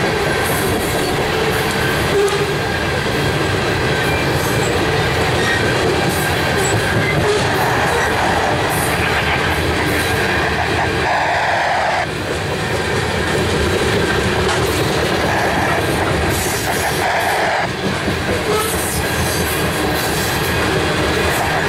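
Heavy coal gondolas of a unit coal train rolling past close by: a steady rumble and clatter of steel wheels on the rails, with repeated clicks as the wheels pass over the rail joints.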